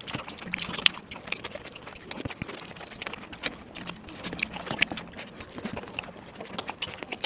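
Close-up chewing and lip smacking of someone eating: a run of irregular wet clicks and smacks.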